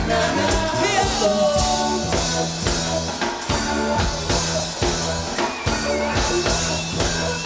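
Live band playing an upbeat reggae/ska song with drum kit and bass keeping a steady beat, and a voice singing or toasting over it.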